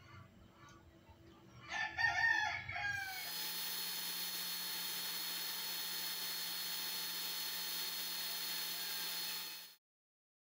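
A rooster crows once, about two seconds in. Then a power drill runs steadily for about six seconds, boring a hole through a plastic bucket, and cuts off suddenly.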